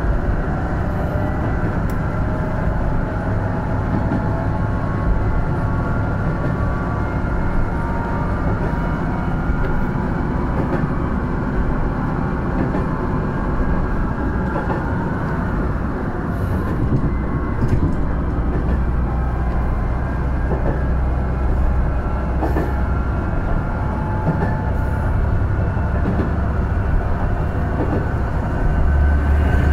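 Ise Railway diesel railcar running along the line, heard from inside the car: a steady low rumble of engine and wheels with a few faint clicks over rail joints, and a deeper rumble near the end.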